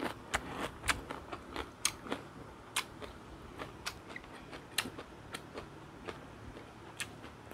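Close-up chewing of a bite of crisp raw cucumber: irregular crunches, two or three a second at first, growing sparser toward the end.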